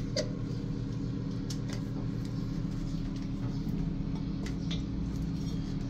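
A steady low mechanical hum made of several fixed tones, with scattered faint clicks from a caulking gun as it lays silicone along the top edge of a washbasin against the tile.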